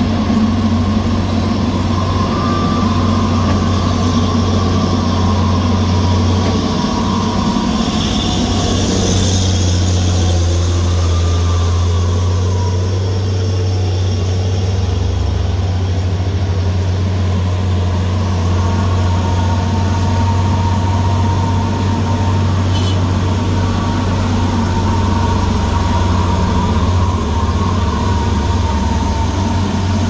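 Heavy diesel truck engines running under load as they climb a steep hairpin bend, a steady low drone throughout.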